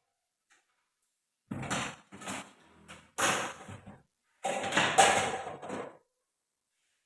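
Handling noise from the juice extractor's parts: knocks and scraping in three separate bouts of about a second each, the loudest about five seconds in.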